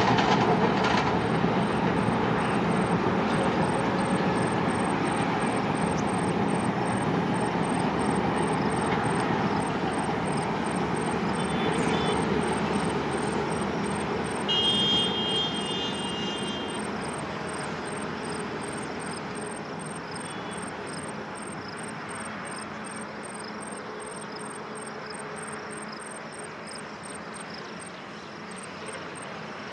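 Long passenger train running in the distance, a steady rumble that fades slowly as it draws away. A short high horn sounds about halfway through.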